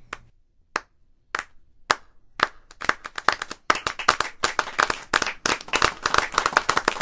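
A slow clap: single hand claps about half a second apart, quickening and then growing into fast, dense clapping like a small group's applause from about three seconds in.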